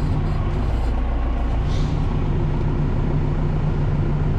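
Tractor's diesel engine running steadily at low revs, heard from inside the cab as an even low drone, with one short hiss about two seconds in.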